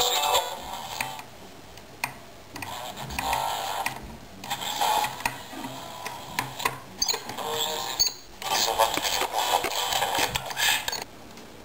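Tesla Dolly transistor radio being tuned by hand across the band: hiss and static come and go with short silent gaps, brief snatches of stations and a few short whistles in between.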